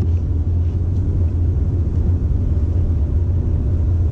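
Steady low rumble of a car driving on a snowy road, heard from inside the cabin: engine and tyre noise.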